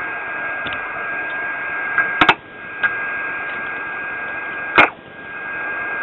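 Icom IC-R71A receiver's speaker giving steady band hiss with a constant whistle, the beat note of a signal generator's test carrier tuned in at the antenna input. Two loud clicks come about two and a half seconds apart, and the hiss briefly drops away after each.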